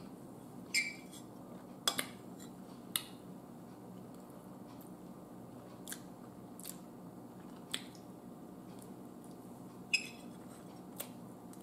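A metal spoon clicking and scraping against a plate as a piece of cake is cut and scooped, about ten light clicks scattered through, two of them ringing briefly, with soft chewing between.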